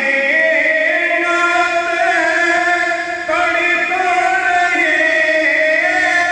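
A solo voice chanting a naat, the Islamic devotional poem, in long held and gliding notes, with a brief breath about three seconds in before the next phrase.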